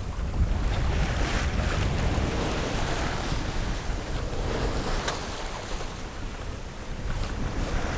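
Wind buffeting the microphone and water rushing along the hull of a sailboat under sail, a low rumble with a hiss that swells and eases.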